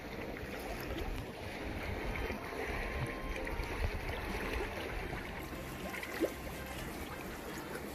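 Gentle seawater washing among breakwater rocks and tetrapods, with wind rumbling on the microphone.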